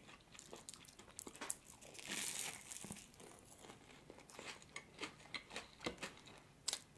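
Flaky maple-pecan puff pastry crackling and tearing as it is broken and bitten, with one longer crinkly crackle about two seconds in. Soft small crunches and clicks of eating close to the microphone follow.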